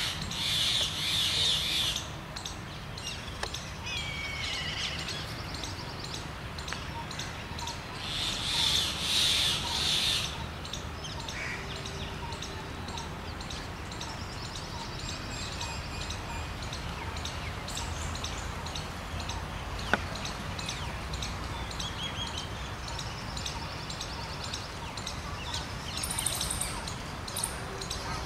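Birds calling in the trees: two loud bouts of dense, high-pitched calls, one at the very start and one about eight seconds in, with fainter chirps in between and near the end, over steady outdoor background noise.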